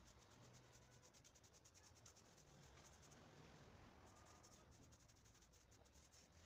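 Near silence, with the faint scratchy rubbing of a paintbrush's bristles as paint is brushed onto a plywood ring.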